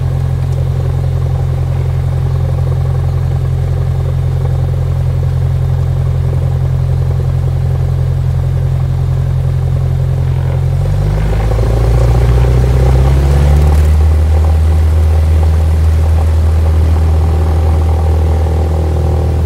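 Single-engine light aircraft's piston engine and propeller, heard from inside the cabin, running steadily at low power. About eleven seconds in it is throttled up to a louder, steady full-power run for the takeoff roll.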